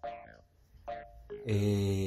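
Playful background music: short, bouncy pitched notes, then a longer, louder held note about a second and a half in.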